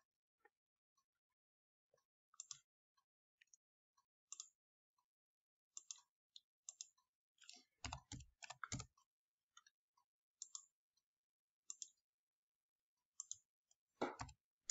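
Faint, scattered computer mouse clicks and keyboard keystrokes, with a quick run of keystrokes about eight seconds in, some carrying a dull thump.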